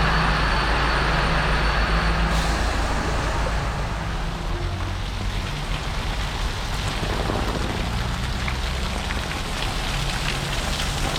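A motor vehicle's engine running close by, a steady low rumble, with rain hissing over it.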